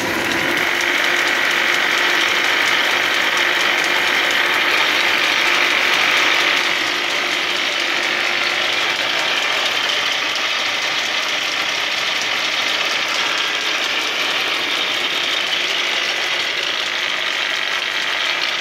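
Old flat-belt-driven American sash sticker (a sash moulding machine) running just after start-up: a loud, steady mechanical clatter and whir of belts, pulleys, gears and the spinning cutter head, with its knives taken out. It is a little louder for the first several seconds, then settles.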